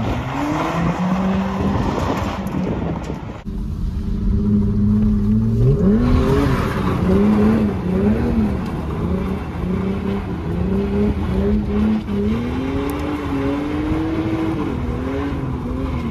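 Car engine revving hard during a drift, its note rising and falling again and again, with tires skidding. The sound changes abruptly about three and a half seconds in, then the revving carries on.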